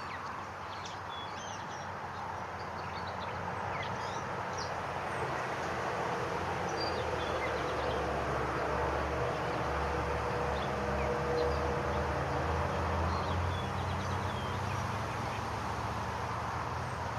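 Outdoor ambience: a steady hiss of background noise with scattered faint, short, high bird chirps. A low hum swells in the middle and eases off toward the end.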